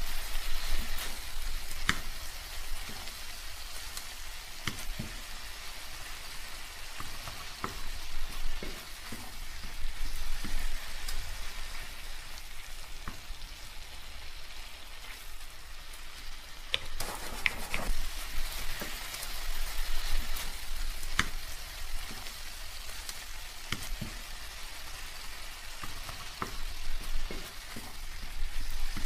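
Pan of milkfish paksiw cooking in its vinegar-and-water broth with a spoonful of oil: a steady sizzle with scattered crackling pops as it simmers until the fish is done.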